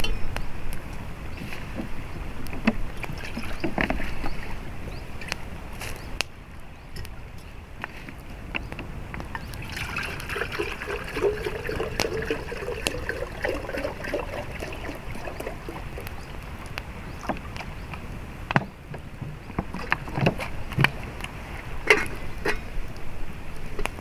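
Water pouring from a plastic bottle into a metal teapot about ten seconds in, its pitch rising slightly as the pot fills. A small wood fire crackles throughout with scattered snaps and pops, and there are a few sharper knocks near the end.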